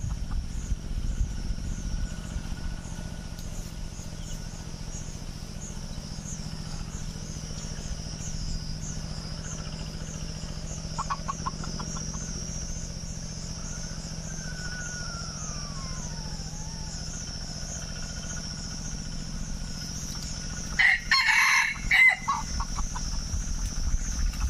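Red junglefowl rooster crowing once, a short loud crow about three-quarters of the way through. Under it runs a high, steady pulsing of insects, and a bird gives a faint falling whistle midway.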